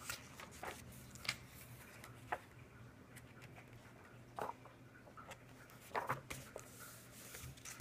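Faint paper rustles and soft flaps as the pages of a thick oversized hardcover book are turned by hand. There are a handful of short sounds, the clearest about four and a half and six seconds in.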